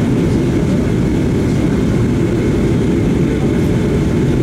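Steady cabin noise inside an Airbus A320 airliner during its approach: a low, even drone of airflow and engines heard through the fuselage.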